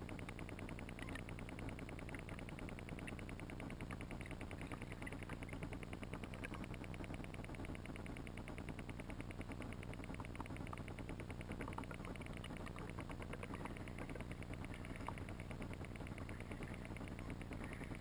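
Muffled underwater ambience picked up by a GoPro in its waterproof housing: a steady low rumble and hiss, with faint small clicks now and then.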